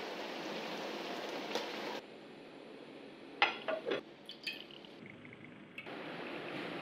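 Quiet kitchen sounds over a hiss of room noise: a cluster of sharp clinks with brief ringing about halfway through, as of a spoon against a clay pot, and a small trickle of liquid as sauce is poured into the pot.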